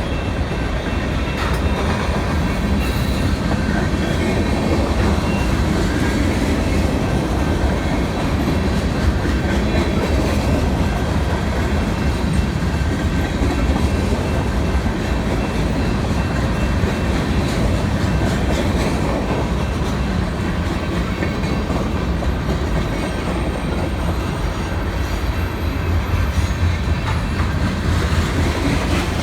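BNSF manifest freight train rolling past, a steady rumble of steel wheels with clicking over the rail joints.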